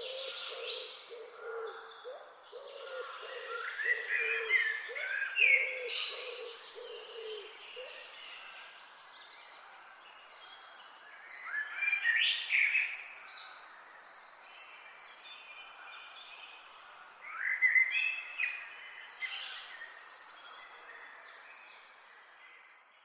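Wild songbirds singing, in phrases that come every several seconds with quick rising and falling notes. For the first eight seconds a low call repeats steadily beneath the song. Near the end the sound fades out.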